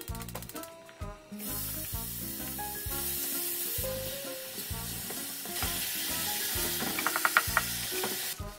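Mixed ground beef and pork sizzling in a hot nonstick frying pan. The sizzle starts about a second and a half in, and a spatula stirs and taps through the meat, most clearly near the end.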